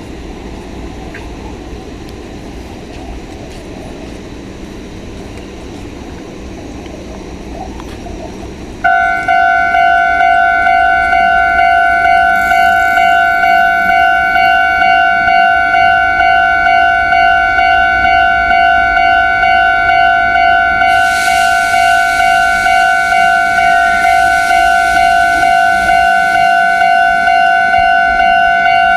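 Japanese railway level-crossing warning alarm starting suddenly about nine seconds in: a loud electronic bell tone ringing at a steady repeating beat. About twenty seconds in, a rushing hiss joins it under the alarm.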